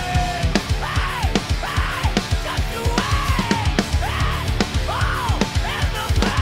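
Rock band playing loud, with a pounding drum kit and a steady bass under a lead line that bends up and down in pitch again and again.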